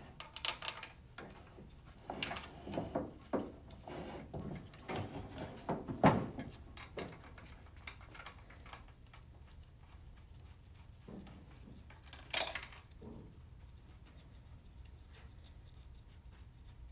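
Scattered metallic clinks and knocks as bolts are started into an aluminium CVT transmission case and the case is handled on the workbench. Most come in the first seven seconds, with one sharper knock about twelve seconds in.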